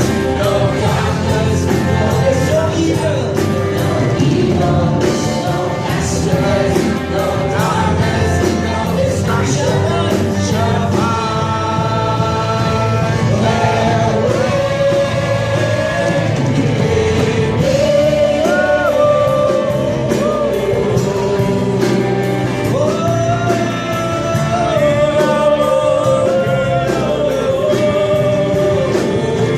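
Worship music: voices singing long held notes over a full band accompaniment.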